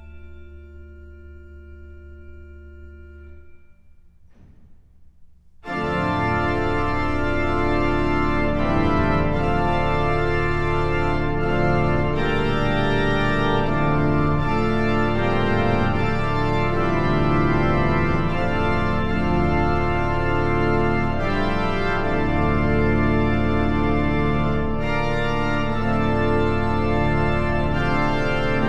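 Klais pipe organ: a soft held chord over a low pedal note fades into the hall's reverberation, then about six seconds in the full organ enters suddenly with loud, dense sustained chords and heavy pedal bass that carry on.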